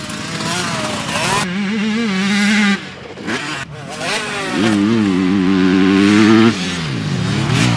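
250 cc four-stroke motocross bike ridden hard in third gear: the engine holds high revs, drops off throttle about three seconds in, then comes back on and holds before falling and rising again near the end. The throttle is chopped as the rider brakes before the take-off of a tabletop jump, then picked up again.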